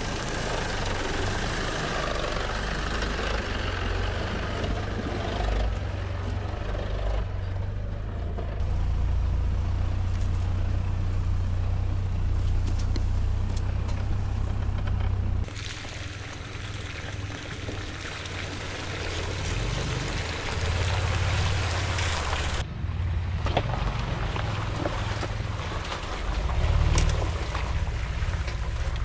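Mitsubishi Pajero 4x4 engine running at low revs, a steady low rumble, as the vehicle crawls over a rough, rutted off-road track.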